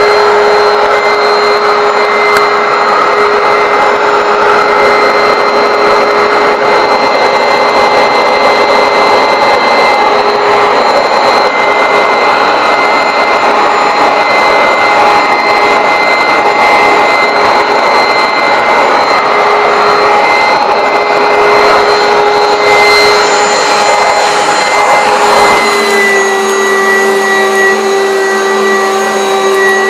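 Garry GL100 upright vacuum cleaner running steadily, a motor whine over rushing airflow. Its note drops slightly and changes near the end.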